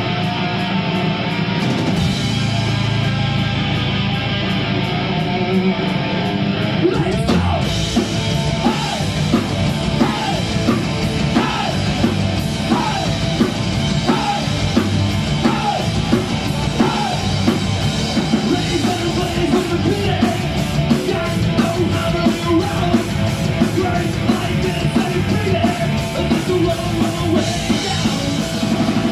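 Live heavy rock band playing loud distorted electric guitar. About seven seconds in the drums come in with a steady beat, and vocals follow over the full band.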